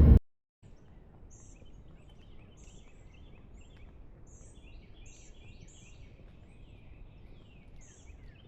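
Faint outdoor ambience with small birds chirping: many short, high chirps one after another, a few falling in pitch near the end, over a low steady hiss.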